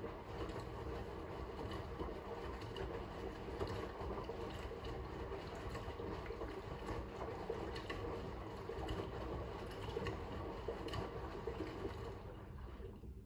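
Fisher & Paykel front-loading washing machine tumbling a wet load during its first rinse fill: water sloshing and clothes turning in the drum. The tumble stops near the end as the drum pauses.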